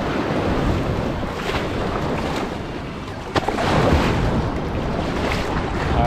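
Ocean surf washing up and running back over the beach, with wind buffeting the microphone. A sharp click about three seconds in.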